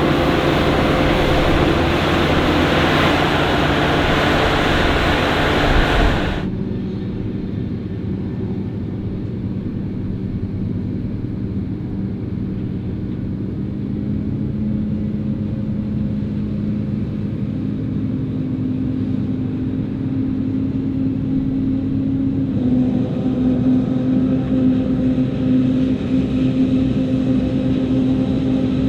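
Heavy diesel farm machinery running during maize harvesting. A loud, dense machine noise cuts off suddenly about six seconds in. It gives way to a quieter engine with a steady hum, which grows louder again about two-thirds of the way through.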